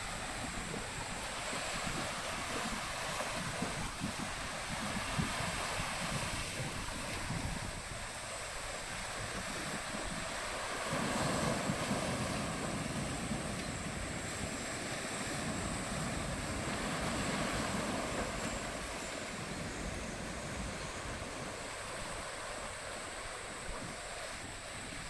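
Strong gusting wind buffeting the microphone, rising and falling in gusts, over the wash of wind-driven waves.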